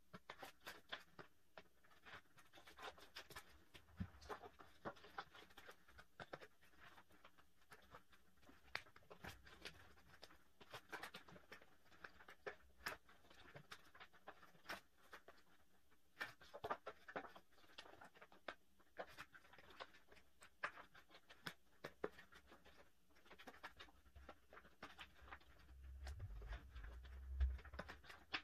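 Clear plastic photocard sleeves in a three-ring binder rustling and crinkling as pages are lifted and turned on the metal rings, with many small irregular clicks. A soft low thump comes near the end.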